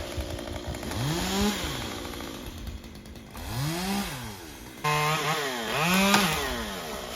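Two-stroke chainsaw engine revving up and dropping back three times, with a brief steady run just before the third rev.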